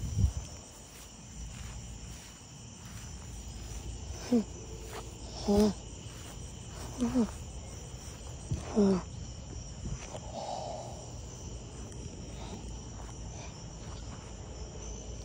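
Insects chirring steadily in a continuous high outdoor chorus. A thump comes just after the start, and four short voice-like calls come between about four and nine seconds in.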